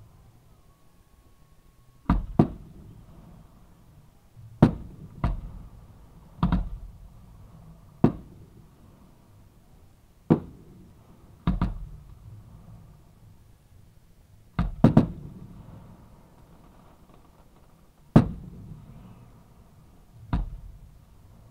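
Aerial fireworks going off close by: about a dozen sharp booms, a second or two apart and some in quick pairs, each with a short fading tail.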